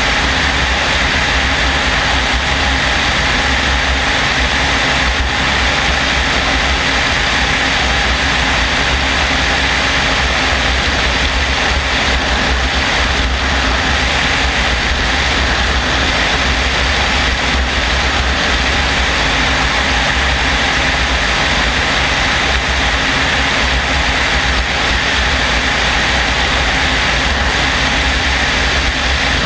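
Helicopter in flight heard from a camera mounted on its outside: a loud, steady rush of rotor and engine noise mixed with wind on the microphone.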